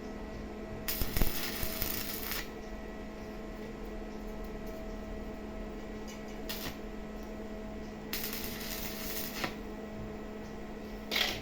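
Stick welding on galvanised pipe: two short bursts of crackling arc hiss, each about a second and a half long, one about a second in and another around eight seconds in, over a steady low hum.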